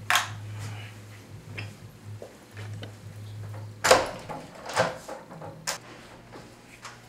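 A wooden room door being handled and opened, its latch giving a sharp clack about four seconds in, with a few lighter knocks before and after over a steady low hum.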